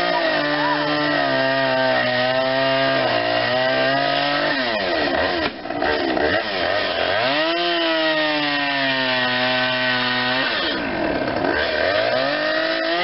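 Two-stroke chainsaw revving up and cutting into a tree trunk, its engine note sagging slightly under load, then dropping back between cuts; this happens three times, the last rev-up near the end.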